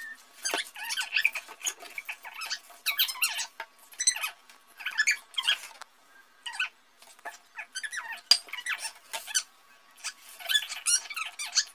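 A young girl's voice reading aloud, played back fast-forwarded so it comes out as a rapid, high-pitched squeaky gabble with no intelligible words.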